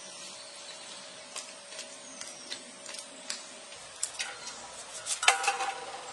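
Crisp clicks and crackles as the stiff, spiky crown is cut and twisted off a pineapple, growing busier toward the end. About five seconds in comes the loudest moment, a clatter with a brief metallic ring as the crown drops into a stainless steel bowl.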